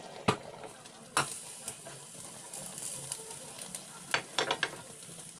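Kitchen work sounds: a few sharp utensil clinks against dishes over a steady hiss, with a quick cluster of clicks near the end.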